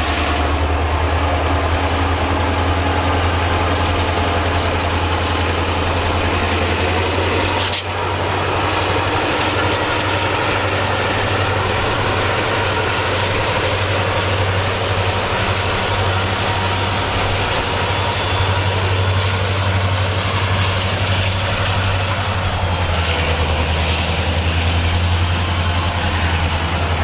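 Freight train hauled by EMD diesel locomotives passing close by: a steady, heavy diesel engine rumble under the noise of the moving train, with a thin high-pitched whine above it. There is a brief break about eight seconds in.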